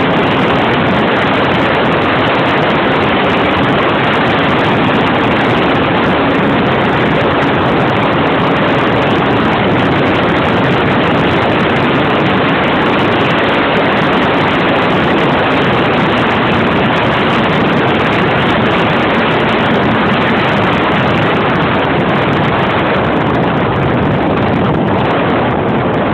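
Model aircraft's O.S. .46 glow engine running at steady high power, buried in heavy wind rush on a phone microphone carried aboard. It is a constant loud noise with a faint steady hum under it and no change in pitch.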